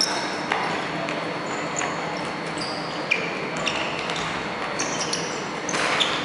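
Indoor dodgeball play in a large reverberant sports hall: athletic shoes squeaking in short chirps on the wooden court, a sharp ball impact about three seconds in, over a steady hall background.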